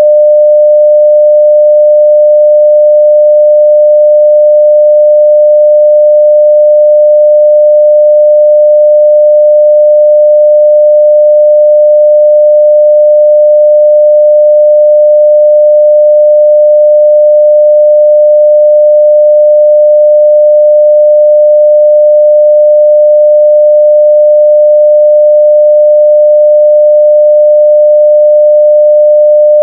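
A pure 600 Hz sine-wave test tone at full level (0 dB), held perfectly steady with no change in pitch or loudness.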